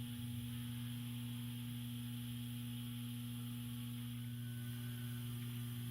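Steady electrical mains hum, a low even drone with a second tone an octave above, unchanging throughout, over faint hiss.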